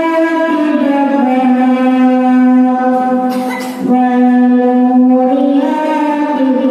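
Qur'an recitation (tilawah): a single male voice holding long, drawn-out melodic notes that step between a few pitches, with a brief intake of breath a little past halfway.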